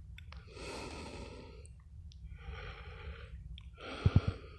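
A man breathing heavily through the mouth while hiking on snowshoes, with a long breath about every second and a half. A couple of short low thumps come near the end.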